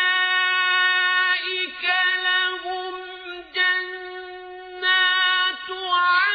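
Male voice reciting the Quran in the slow, melodic tajweed style. Long vowels are held on a high, steady pitch with ornamental turns, broken by a few short pauses.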